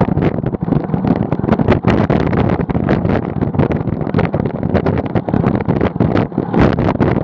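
Loud wind buffeting the microphone of a camera moving along a gravel road, mixed with the rumble of tyres rolling over the gravel.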